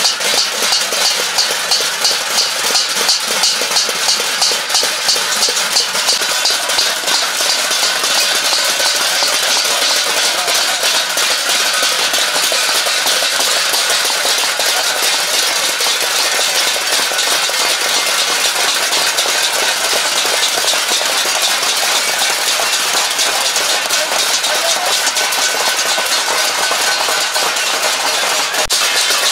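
Many stainless-steel plates beaten with spoons and ladles by a seated crowd, a dense, continuous metallic clatter. It pulses in a rough shared beat at first, then settles into an even din after about seven seconds. This is plate-banging as a protest over hunger.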